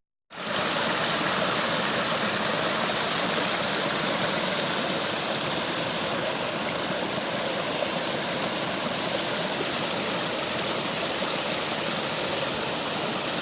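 Steady rushing of creek water, an even, unbroken rush.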